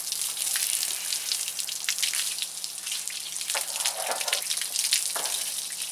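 Water running off a Jeep hardtop and spattering onto the driveway, a steady hissing patter of splashes and drips, as the top is washed down by hand.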